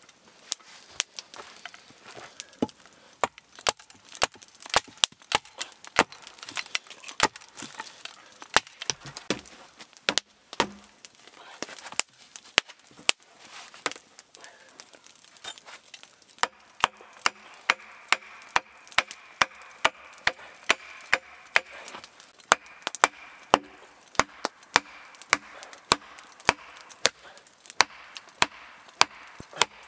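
Axe striking wood again and again, sharp knocks at uneven spacing at first, then settling about halfway through into a steady run of about two blows a second.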